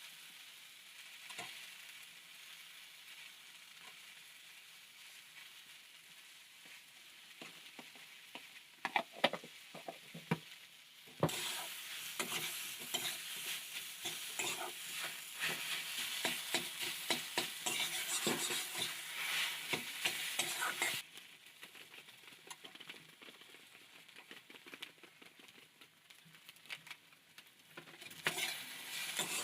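Food frying in hot oil in a pan, sizzling, with a spoon stirring and scraping against the pan in scattered knocks. The sizzle swells much louder for about ten seconds in the middle, then drops back.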